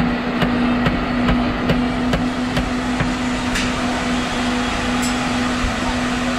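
Metal strainer tapping and pressing sweet potato balls in a wok of frying oil: short sharp metallic clicks about two to three times a second, over a steady hum and a hiss.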